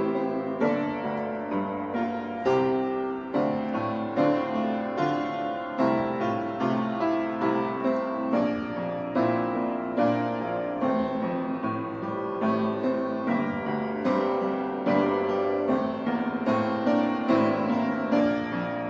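Piano music played at an even pace, with notes struck in a steady stream.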